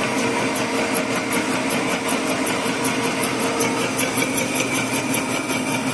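Small horizontal boring mill with a 3-inch spindle, its boring bar cutting through the pinhole bore of a Caterpillar 950 Z-link on the first pass after touch-up welding. The cutter is chewing through weld spots and hard, fast-chilled spatter, which is hard on the cutter. It makes a steady machining noise with a fast, even pulse of about eight a second.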